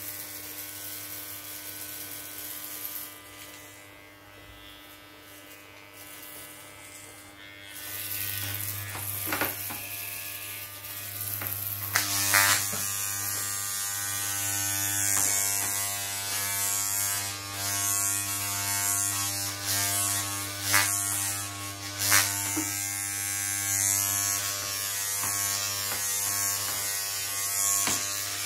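Corded electric hair clippers buzzing steadily while cutting short hair. The buzz gets louder about eight seconds in, with a few sharp clicks along the way.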